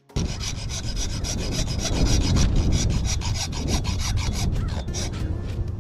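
Fiberglass rod being sawn through, a harsh rasping cut with rapid back-and-forth strokes that starts abruptly.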